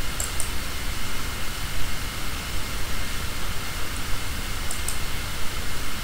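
Steady background hiss with a low rumble underneath, with a few faint clicks.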